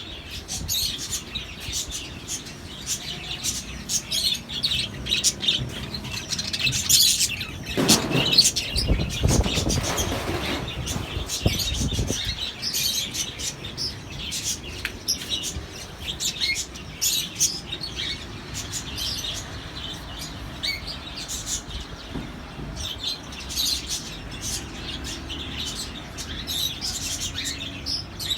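Many small birds chirping, short high calls overlapping throughout. A louder rushing noise rises and falls between about seven and twelve seconds in.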